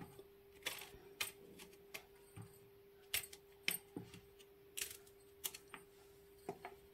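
Knife slicing rounds off a small eggplant held in the hand, about a dozen sharp, irregular clicks as the blade goes through and the slices drop onto a plastic tray, over a faint steady hum.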